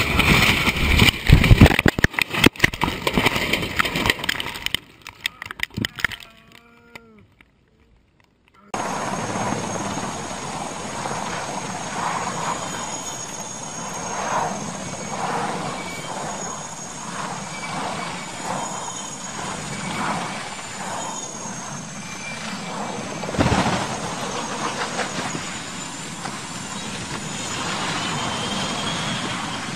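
A small plane crashing down through trees, heard from the cockpit as a rapid series of loud crunching and snapping impacts over the first few seconds. After a near-quiet gap comes the steady noise of a low-hovering military helicopter, then a single sharp crash impact about 23 seconds in as it hits the ground.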